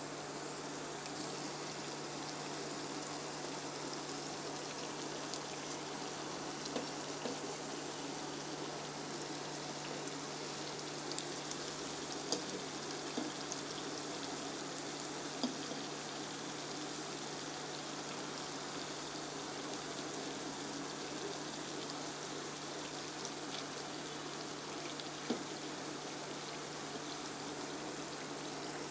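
Banana-and-wheat-flour batter balls frying in hot oil in a multi-cavity appe pan, a steady sizzle. A few light clicks of a metal fork against the pan come in the middle and once near the end.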